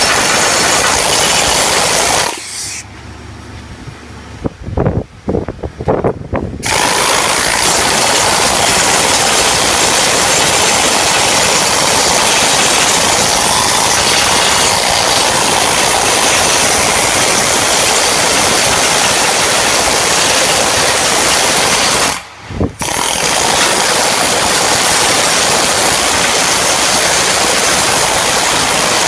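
Flux-cored arc welding on stainless steel: the arc's steady crackling hiss. It stops about two seconds in, restarts in several short stuttering bursts, then runs steadily with one brief break a little past twenty-two seconds.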